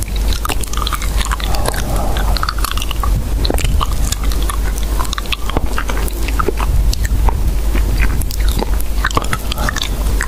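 Dense, irregular crunching and clicking, many sharp crackles a second, over a steady low hum.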